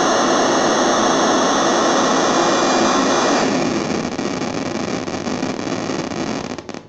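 SN76477 sound chip's noise source putting out a loud, steady hiss of white noise. About halfway in it turns duller and then fades as its low-pass filter is turned down, and it cuts off near the end.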